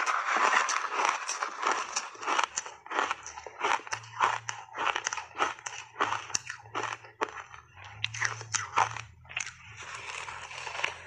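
Crunching and chewing of big mouthfuls of frozen berry shaved ice coated in matcha milk powder: a quick run of sharp crunches, several a second.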